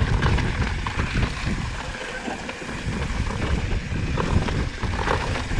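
Mountain bike riding over a rough, rocky trail: wind buffeting the camera microphone with a steady rumble, and the bike rattling and clattering over rocks throughout.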